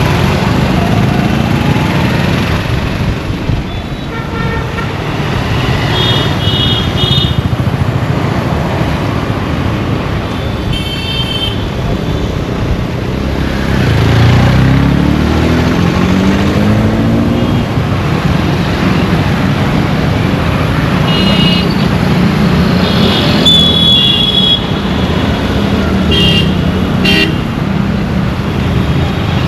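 Road traffic: a steady rumble of engines with car horns honking several times, and a vehicle engine revving up about halfway through.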